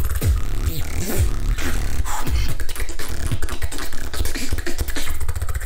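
Human beatboxing into a handheld microphone: deep bass kicks that drop in pitch, with fast clicking hi-hat and snare sounds packed between them.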